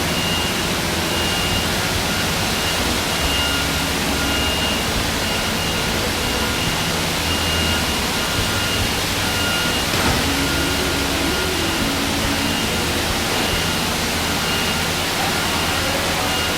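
Heavy construction machinery at a concrete pour running steadily with a loud, even rushing noise and a low engine hum, while a back-up alarm beeps over and over, about once a second.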